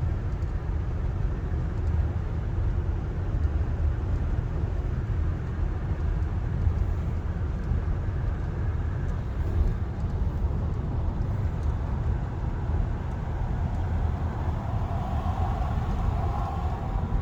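Steady low road and engine rumble heard inside the cabin of a car driving on the highway.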